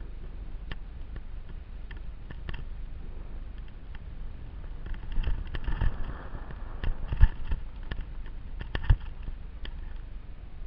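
A camera carried along a forest trail, jostling and rubbing: a steady low rumble with scattered knocks and rattles. These thicken between about five and nine seconds in, and the two sharpest knocks come near seven and nine seconds in.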